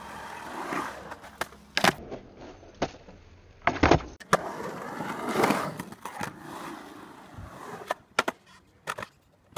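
Skateboard wheels rolling and carving on a concrete bowl, with a series of sharp clacks and thuds as the board hits the concrete and coping. The loudest, heaviest thud comes just before four seconds in.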